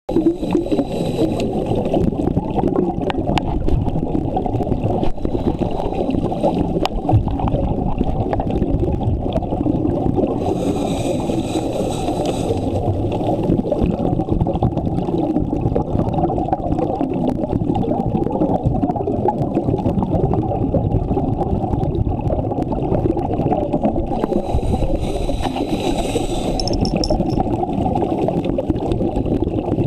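Muffled underwater noise picked up through a diving camera's housing: a steady low rumble, with two bursts of hiss lasting about two seconds each, about 11 and 25 seconds in.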